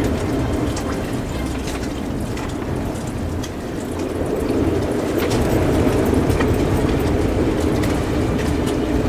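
Strong wind blowing over a sailboat on a mooring, a steady rushing noise with low rumble, scattered light ticks and taps, gusting louder about halfway through.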